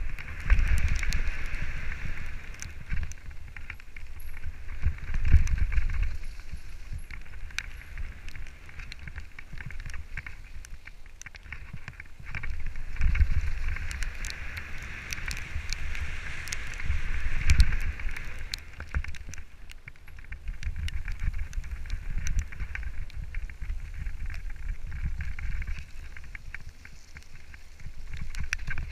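Mountain bike descending a dirt and gravel trail, heard from a helmet camera: a low wind rumble on the microphone with tyre noise and many small clicks and rattles from the bike over rough ground. The rumble swells several times, loudest about 5, 13 and 17 seconds in.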